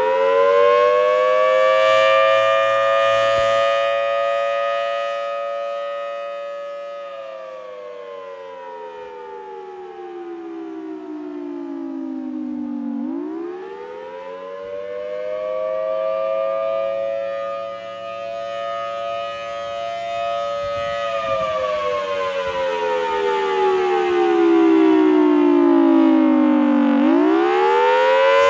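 Federal Signal Thunderbolt 1000T outdoor warning siren sounding its attack signal: a loud wail that rises quickly, holds at its high pitch for several seconds, then slides slowly back down. This happens twice, with a third rise starting near the end, and the loudness swells and fades slowly.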